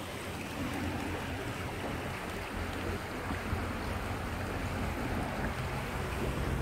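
Steady rushing of a shallow flowing river, with a low rumble underneath.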